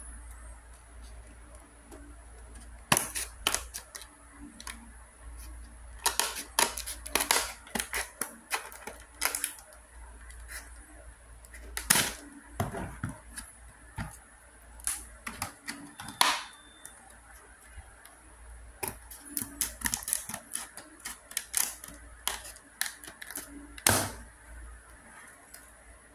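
Scissors cutting through a stiff clear-plastic blister pack: a run of sharp, irregular snips and crackles of the plastic, coming in clusters with short pauses between.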